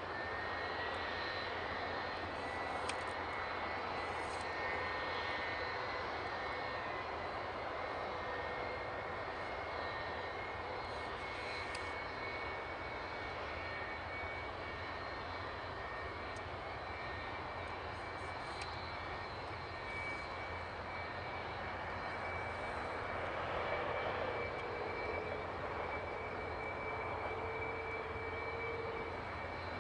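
A Boeing 757's turbofan engine idling steadily: a broad, even hum with a high whine on top. The one remaining engine is kept running on the stopped airliner after the other failed.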